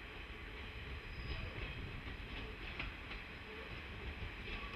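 JR KiHa 40 series diesel railcar approaching slowly, with a low engine rumble and its wheels clicking irregularly over the rail joints.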